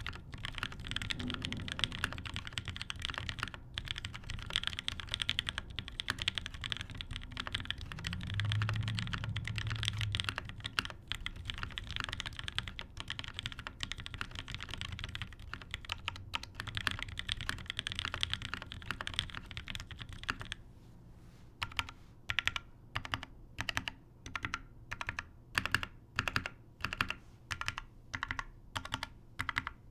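Typing on a Daji Ocho Cuatro 2 XL mechanical keyboard with an aluminium plate, DCS keycaps and frankenswitches on heavy 150 g springs. Fast continuous typing gives way, about two-thirds through, to single keystrokes pressed one at a time at a slow, even pace of a little over one a second.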